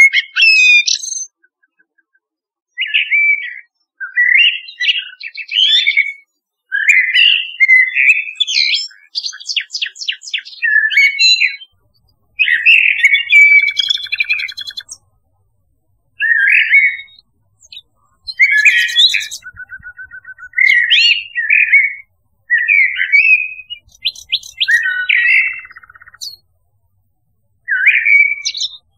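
Recorded song of a nightingale and a blackbird: a run of short, varied, whistled and twittering phrases, one after another with brief silent gaps.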